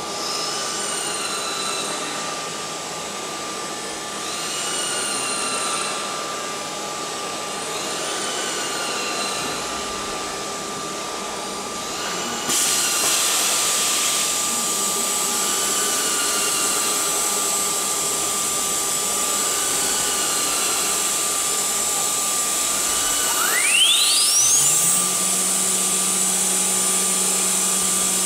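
CNC aluminium-profile machining centre running with a steady whine. Short rising motor whines repeat about every four seconds at first, and a hiss comes in about twelve seconds in. Near the end the spindle winds up in a fast rising whine and then runs on with a steady hum.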